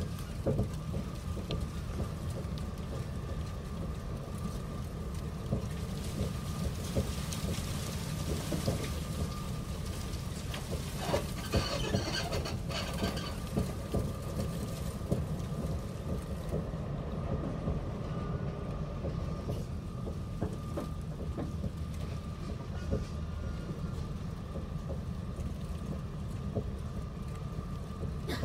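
Interior ride noise of a moving passenger train carriage: a steady low rumble with a constant thin whine and scattered small clicks from the running gear. A brief high-pitched sound comes about eleven seconds in.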